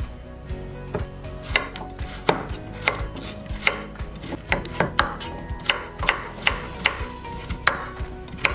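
Chef's knife chopping a carrot into chunks on a wooden cutting board: sharp, separate knocks of the blade hitting the board, about two a second, at an uneven pace.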